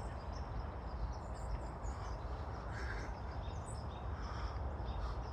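Scattered faint goose calls over a steady low background rumble.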